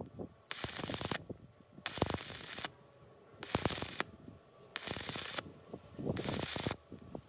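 Electric arc welding: about five short bursts of crackling arc, each under a second long, with brief pauses between, the arc struck and broken again and again as the weld is laid in short stitches across a deep slit.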